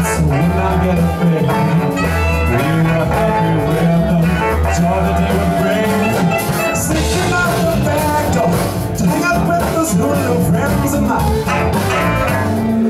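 Live band playing over a strong bass line, with electric guitars and saxophone, and a man singing.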